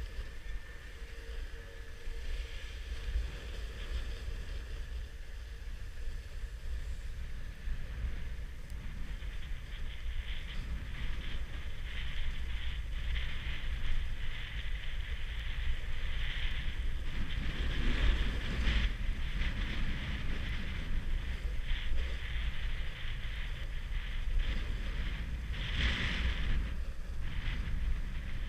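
Wind buffeting an action camera's microphone, a steady low rumble. Over it runs the hiss and scrape of edges sliding over groomed, packed snow, swelling in several turns, the loudest about 18 and 26 seconds in.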